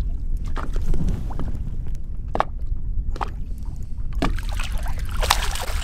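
A hooked bass splashing and thrashing at the water's surface beside the boat, with the splashing heaviest in the last second or so. A steady low rumble runs underneath.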